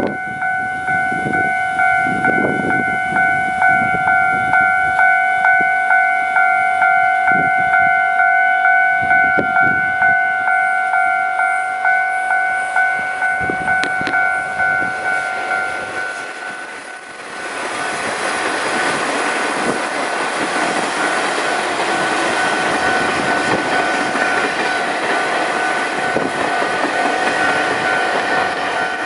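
Level-crossing warning bell ringing in an even rhythm, about one and a half strikes a second. About seventeen seconds in, a Chu-Kuang express train reaches the crossing and its steady rumble and wheel clatter on the rails covers the bell.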